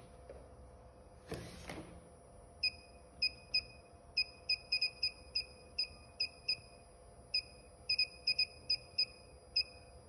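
Waveform generator's panel beeper giving short, high beeps, one for each step as the square wave's duty-cycle setting is raised. About twenty come in a quick, uneven series from about two and a half seconds in, over a faint steady electronic hum. A brief rustle of handling noise comes before the beeps.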